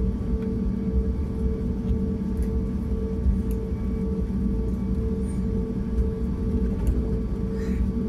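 Airliner cabin noise while taxiing: a steady low rumble with the even hum of the jet engines at idle.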